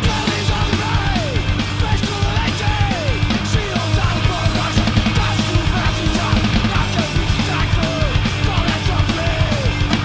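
Hardcore punk band recording playing loud: distorted electric guitar, bass and fast drums, with a run of short falling slides in pitch recurring about once a second.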